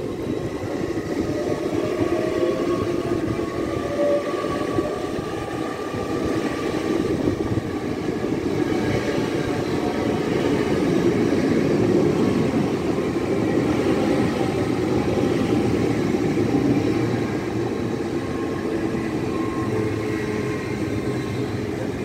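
Great Western Railway Hitachi Intercity Express train running past: a steady rumble of wheels on rail, louder in the middle, with some whining tones that slide in pitch in the first few seconds.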